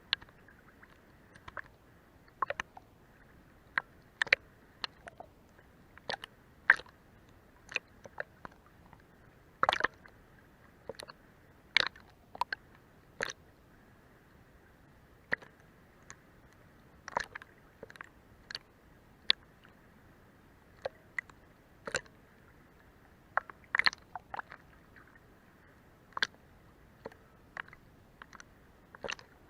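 Sea water lapping against a boat's hull: irregular small slaps and sharp clicks, one or two a second, over a faint steady hiss.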